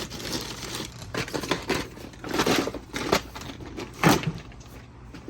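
Rummaging: objects being handled and moved about, with a handful of irregular knocks and clatters.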